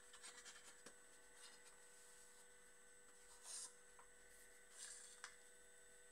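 Near silence: a faint steady electrical hum, with a couple of soft brief rustles about halfway through and a small tick near the end.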